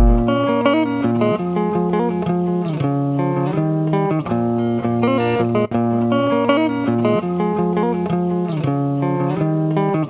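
Background music led by guitar, plucked notes and chords changing in a steady rhythm.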